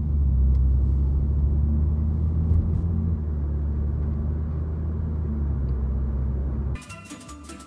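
Steady low rumble of a car on the move, heard from inside the cabin. It cuts off suddenly near the end, where music comes in.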